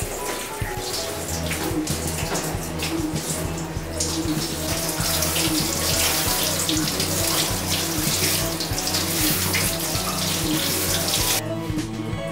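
Water running and splashing over a dog's wet coat as it is rinsed in a bath, with background music that has a steady bass line. The water stops sharply about a second before the end.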